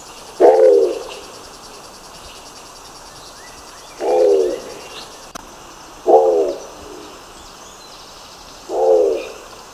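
Nicobar pigeon calling: four short, low calls of about half a second each, spaced a few seconds apart.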